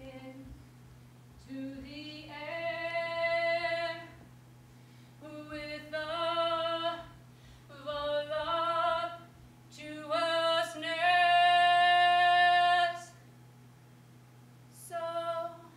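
A woman singing long held notes in five phrases, each one to three seconds long with short pauses between. The longest and loudest note comes about two thirds of the way through, and a brief last phrase sounds near the end.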